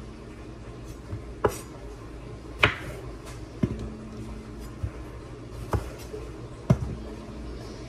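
Kitchen knife slicing strawberries on a wooden cutting board: a few sharp knocks of the blade striking the board, roughly a second apart.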